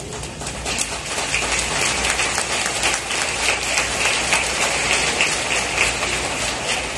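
Large stadium crowd applauding, building up in the first second and then steady, easing off near the end.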